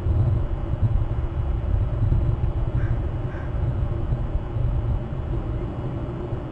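Steady low outdoor rumble and hiss picked up by a webcam's microphone, with two faint short calls about three seconds in.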